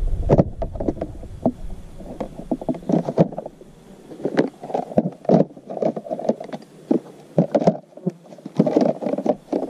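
Hard plastic organizer cups of a RIDGID tool box being lifted out and set into place, giving repeated short plastic clicks and knocks in small clusters.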